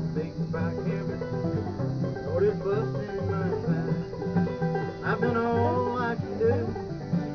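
Acoustic bluegrass played on banjo, mandolin and acoustic guitar together: quick picked banjo notes over strummed guitar chords, with mandolin in the mix, at a steady driving tempo.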